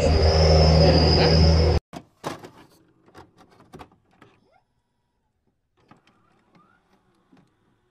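A steady electric hum with a thin high-pitched whine over it, cut off abruptly about two seconds in. After that, only faint scattered clicks and short glitchy blips.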